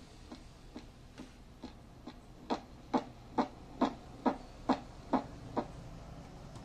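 Steady ticking, a little over two ticks a second, played back through the amplifier's small speaker. It is faint at first, grows much louder about two and a half seconds in, and stops shortly before the end.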